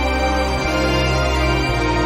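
Background music with slow, sustained chords.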